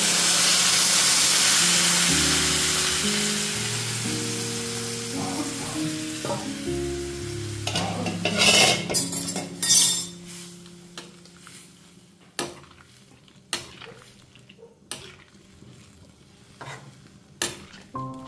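Water poured into a hot kadhai of oily frying vegetables hits the oil with a loud sizzle that slowly dies away over several seconds. A metal ladle then stirs the wet curry, clicking against the wok now and then.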